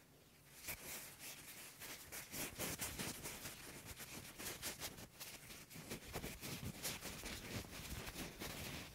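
Cotton balls rubbed and squeezed directly on the mesh grille of a Røde NT-USB Mini microphone, making close-up crackling and scratching with many small clicks. It starts about half a second in.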